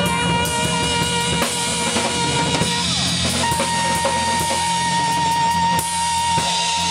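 Live band playing: a saxophone holds a long high note, breaks off briefly around the middle and then holds another, over a drum kit beat and a steady low bass line.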